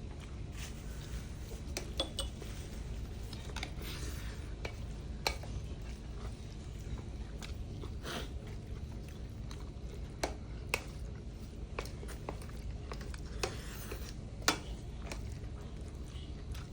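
Utensils clinking and scraping against bowls as people eat noodles and soup, irregular sharp clicks with a few louder knocks, over a steady low room hum.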